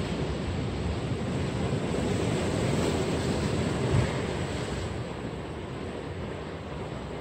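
Steady wash of surf with wind rumbling on the microphone, swelling a little midway.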